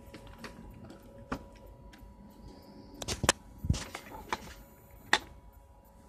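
Scattered clicks and knocks from handling a plastic handheld programmer and cables on a workbench, with a cluster of sharper clicks and a dull thump a little past halfway, over a faint steady tone.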